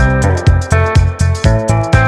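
Electronic background music with a steady beat of about four hits a second and bright synth notes.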